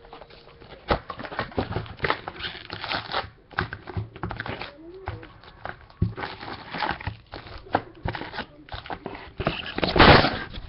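Trading-card packaging being handled and opened: cardboard and foil wrappers rustling and crinkling, with irregular clicks and taps. There is a louder rustle near the end.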